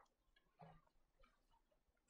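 Near silence, with two faint ticks.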